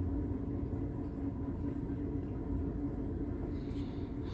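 Steady low hum of room noise with a faint constant tone, and a faint rustle near the end as a plastic breadboard is handled.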